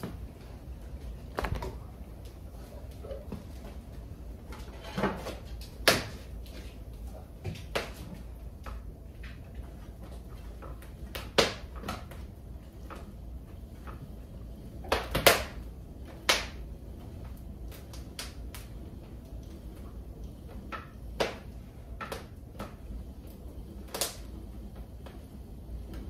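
Irregular wooden clicks and knocks from hands working on a spinning wheel's flyer and bobbin, the loudest pair about halfway through, over a low steady rumble.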